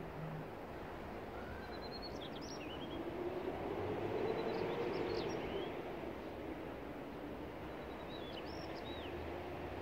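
Outdoor ambience: birds chirping in two short spells over a steady background rumble, with a humming tone that grows louder around the middle and fades away again.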